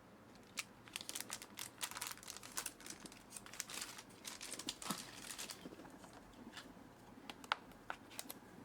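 Crinkly blind-box packaging wrapper being handled and pulled at: a dense run of crackles for about five seconds, then a few scattered clicks.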